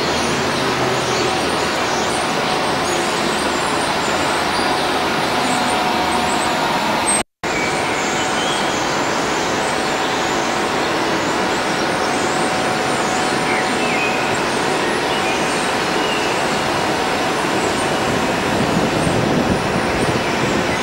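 Trolleybuses running along a city street, a steady vehicle and traffic noise. The sound cuts out completely for a moment about seven seconds in.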